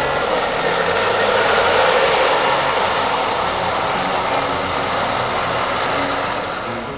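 Marx toy electric train's freight cars running past close by on metal track: a steady rolling mechanical noise that grows louder, then fades toward the end.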